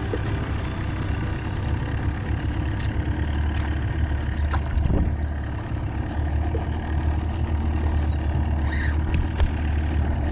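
A boat engine running steadily with a low hum.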